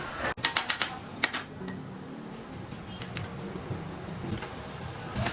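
Sharp clicks or taps: a quick run of about four just after the start, another a little over a second in, then a few faint ticks, over a steady background noise.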